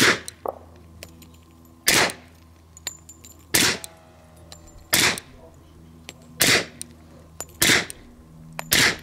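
Seven suppressed .45 ACP pistol shots, spaced about one and a half seconds apart, from a Republic Forge 1911 fitted with a Palmetto State Defense STAK 45 suppressor. It is firing 230-grain subsonic ammunition.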